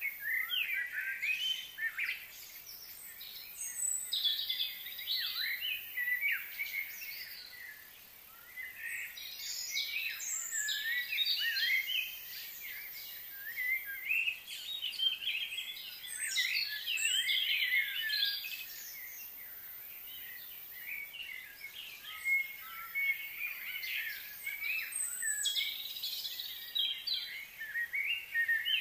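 Small birds chirping and calling in quick, overlapping phrases, coming in clusters of a few seconds with short lulls between them.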